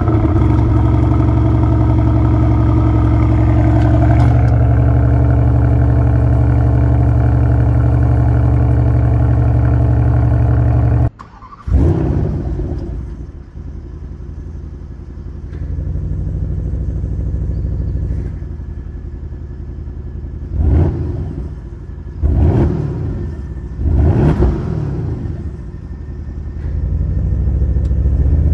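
2024 Porsche Panamera GTS 4.0-litre V8 exhaust on a cold start, held at a loud, steady fast idle that steps down slightly after a few seconds. After a break the engine is started again normally: a short flare settles to a quieter idle, then three quick blips of the throttle rise and fall. Near the end the idle grows louder as dynamic mode opens up the exhaust.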